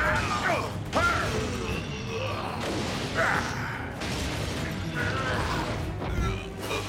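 Sound effects of giant robots fighting: mechanical whirring sweeps and metal clanks, with a sharp hit about a second in, over background score music.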